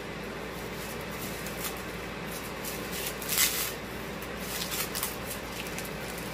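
Garlic bulb being broken apart into cloves by hand: soft, papery crackling and rustling of the dry garlic skins in several short bursts, the clearest about three and a half seconds in, over a faint steady hum.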